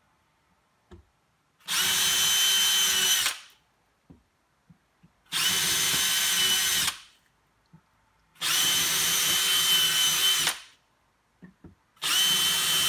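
Cordless drill boring holes into a drywall wall, some into the wooden studs behind: three short runs of about two seconds each at a steady speed, each starting and stopping abruptly, and a fourth run beginning near the end.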